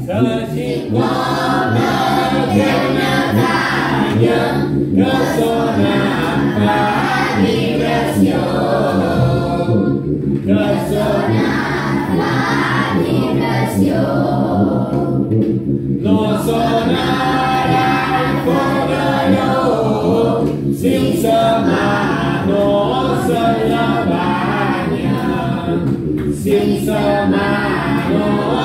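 A group of children singing a Mallorcan Sant Antoni glosa together without accompaniment. The verse comes in sung lines of about five seconds each, with a brief pause between lines.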